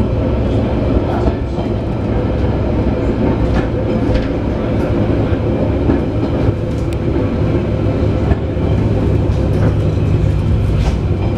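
Ex-London Underground tube carriage running along the track, heard from inside: a steady low rumble with occasional clicks and rattles from the wheels and body.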